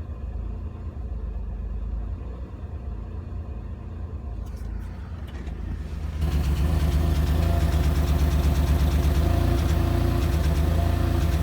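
A 1997 Chevrolet Camaro's 3800 V6 idling with a cylinder 3 misfire, the condition behind its P0303 code and rough idle. About six seconds in the engine becomes clearly louder, with a fast even pulsing.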